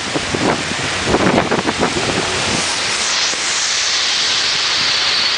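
Storm wind gusting and buffeting the microphone, settling about three seconds in into a steady high hiss.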